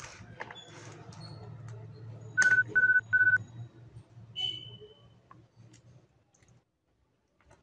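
A small screwdriver turning the screws in the plastic back cover of a TI BA II Plus calculator, heard as faint scattered clicks and scrapes. The loudest sound is a series of three short electronic beeps, evenly spaced, a little over two seconds in. A low hum underneath cuts off near the end.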